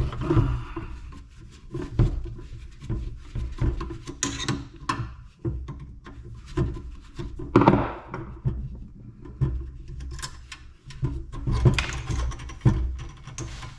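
Scrap metal parts being handled while they are stripped and sorted: a steady run of clanks and knocks, with a few longer scraping rattles.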